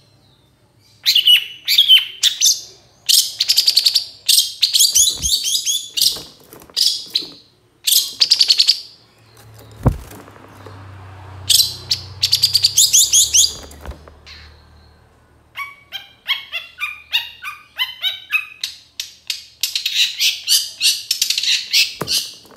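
Long-tailed shrike (cendet) calling in quick runs of harsh, chattering notes, broken by short pauses, with a stretch of evenly spaced clearer notes about two-thirds of the way through. A few dull knocks sound under the calls.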